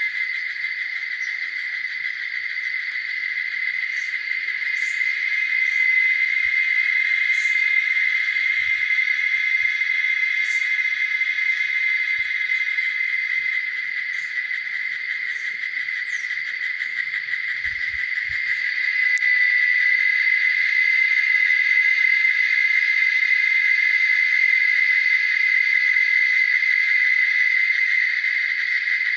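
Steady, shrill drone of a chorus of insects, a constant high buzz that swells and eases slightly in loudness without stopping.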